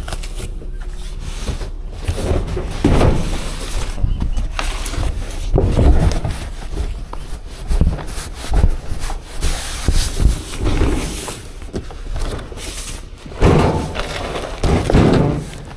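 Large cardboard boxes being slid out of a cargo van's bed and set down on pavement: irregular scraping and rustling of cardboard with occasional knocks.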